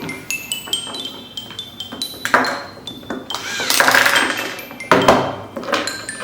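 Background music of chiming, bell-like notes, over the clatter of plastic toy fire engine parts being handled.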